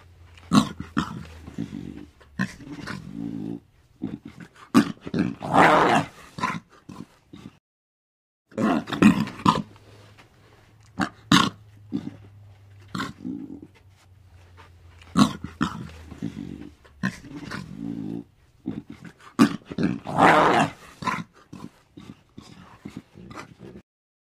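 Lion growling and grunting in a series of short calls, a few drawn out to about a second, broken by two sudden silences.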